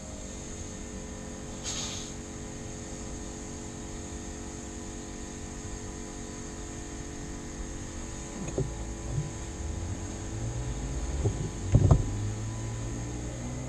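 A steady hum with a brief swish near the start, then a few light knocks in the second half, the loudest just before the end, as the metal rear crankshaft oil seal housing is handled.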